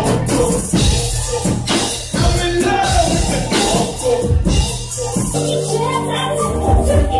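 Loud dance music played over a nightclub's sound system, with a beat and a sung vocal; about five seconds in it changes to held synth chords.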